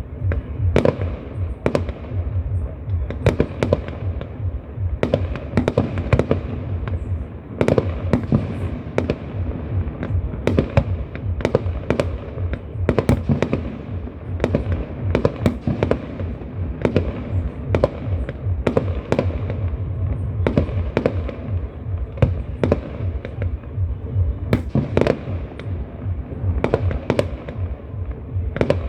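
Fireworks display going off, with a rapid, irregular string of sharp bangs and cracks, several a second, over a continuous low rumble of booming shells.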